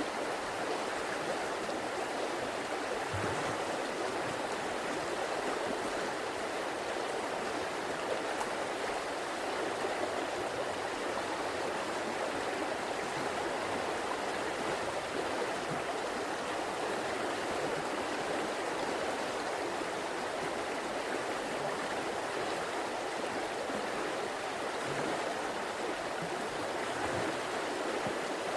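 River water flowing and rushing over rocks, a steady rushing sound.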